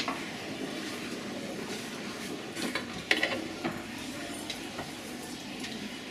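A metal ladle stirring broth in a large stainless-steel stockpot, with a few light knocks against the pot about halfway through over a steady hiss.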